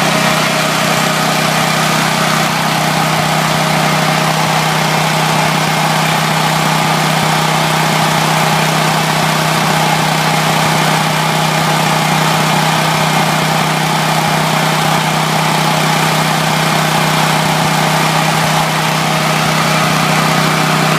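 Powerland portable natural gas generator running steadily on natural gas with an E3 spark plug fitted, an even engine hum that holds one speed throughout.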